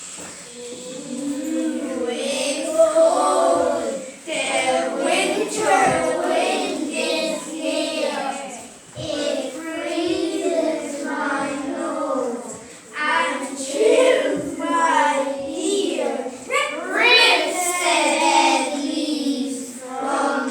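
A group of young children singing together, starting about half a second in, with long held notes.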